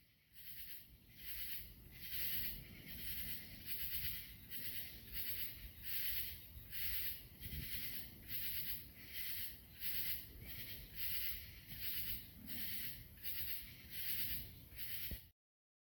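Insects calling in a steady, even rhythm of short raspy pulses, about three pulses every two seconds.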